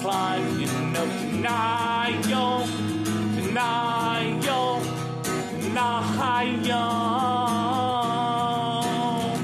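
Acoustic guitar strummed in steady chords, with a voice singing long held notes over it, the longest in the second half.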